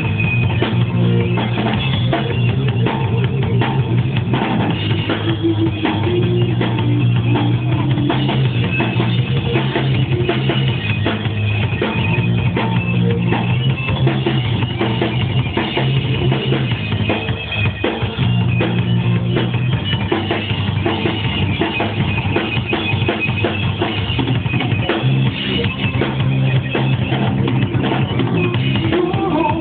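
Live rock band playing an instrumental passage: drum kit with steady kick-drum hits over bass and electric guitar.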